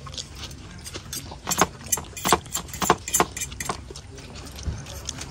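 Tableware clinking: a run of sharp metallic clinks of spoons and forks against plates and bowls, thickest in the middle, over a low steady hum.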